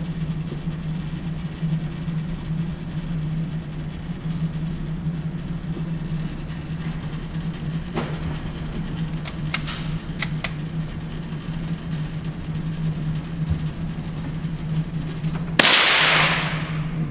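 Steady low hum with a few faint sharp clicks in the middle, then a loud gunshot at the shooting range near the end, its echo dying away over about a second.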